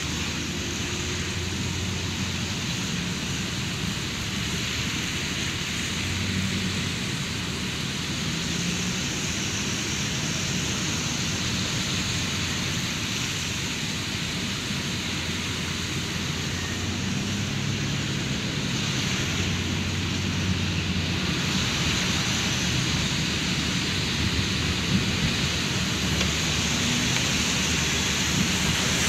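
Steady rain on a car's roof and glass, heard from inside the cabin, over the low rumble of the car in traffic.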